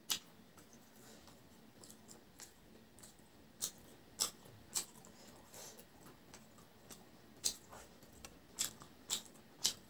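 Close-miked eating: a person chewing mouthfuls of rice and curry, with sharp wet mouth clicks and smacks, three in quick succession around the middle and a cluster of four near the end.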